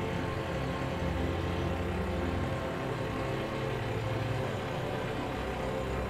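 John Deere tractor's diesel engine running steadily under load as it pulls a reversible mouldboard plough through the soil.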